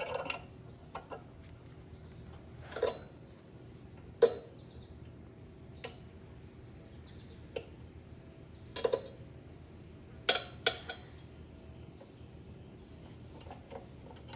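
Scattered metal clinks and clanks of hand tools and loose bolts against a small Honda GCP160 mower engine as it is unbolted, about eight separate knocks with short pauses between them.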